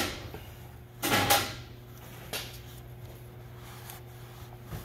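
Handling noise: a brief rustling scrape about a second in and a fainter one a little later, as a gloved hand works inside a pump's stator housing to seat the upper bearing. A steady low hum runs underneath.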